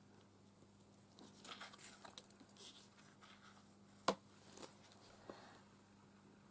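Faint rustling of paper as hands handle a mixed-media journal page, with one sharp click about four seconds in and a couple of smaller ticks after it.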